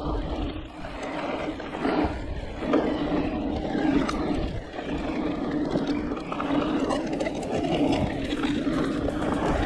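Riding noise of a Giant Reign E+ e-mountain bike descending a dirt forest trail: wind rumbling on the camera microphone and knobby tyres rolling and rattling over the dirt, with a steady low hum underneath.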